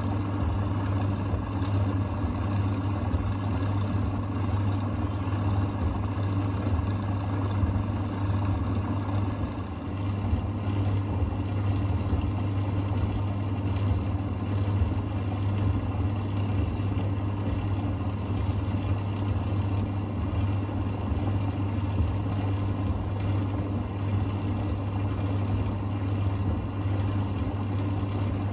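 Thompson TD120 compact table-top vented tumble dryer running: a loud, steady motor hum with the rush of its drum and fan, not the quietest machine.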